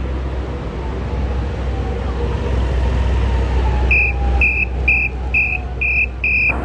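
Steady rumble of street traffic with motorbike engines running. About two thirds of the way in, a series of six short, high electronic beeps comes at roughly two per second.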